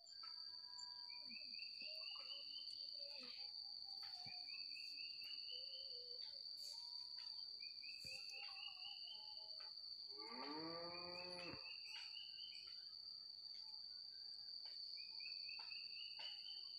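Outdoor ambience: a steady high-pitched insect drone, a bird repeating a short rising trill every couple of seconds, and a cow mooing once, about ten seconds in, lasting over a second.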